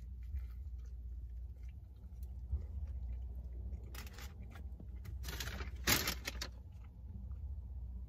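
Eating a breakfast sandwich: short crunching and rustling sounds about four seconds in and again from about five to six and a half seconds, over a steady low hum.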